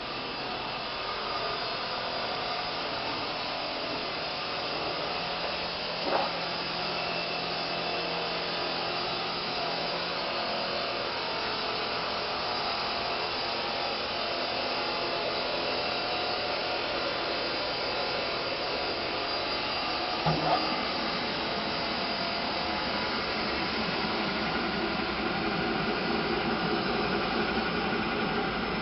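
Tenenco Supercorte TC 46 marble and granite cutting saw running steadily with its motor and blade whirring, a little louder near the end. Two brief knocks, about 6 and 20 seconds in.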